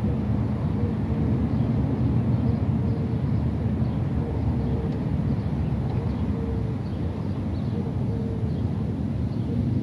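Steady low outdoor rumble, with a faint short tone recurring about once a second.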